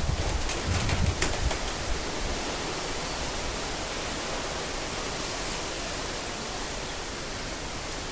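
Steady even hiss, with a few light clicks in the first second and a half as engine parts are handled.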